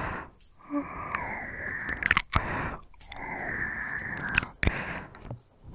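Heavy breathing close to the microphone: slow, noisy breaths of about a second and a half each with short gaps between them, and wet mouth clicks scattered through.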